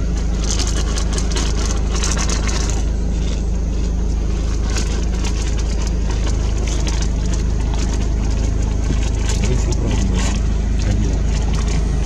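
Steady low rumble of an idling engine, with faint scattered clicks and rustles over it.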